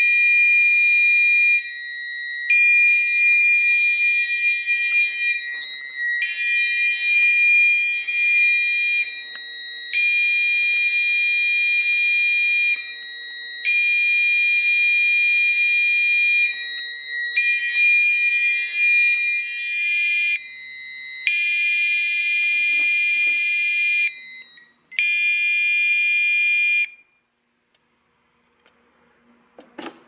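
Fire alarm horns sounding together, among them a Gentex Commander 4 horn, set off by a pulled pull station: one holds a steady high tone while another repeats blasts of about three seconds with short gaps. The steady tone cuts off a few seconds before the end, and the blasts stop soon after as the alarms are silenced.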